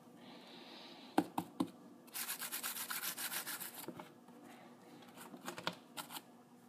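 Fast scratching on the carpet and sisal of a cat tree, a run of quick strokes lasting under two seconds, with a few sharp clicks and rustles before and after.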